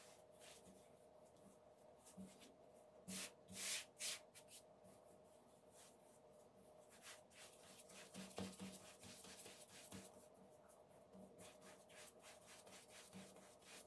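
Faint rubbing and brushing of hands shaping a floured ball of bread dough on a baking mat, in short scrapes that are most frequent around three to four seconds in and again from about eight to ten seconds in.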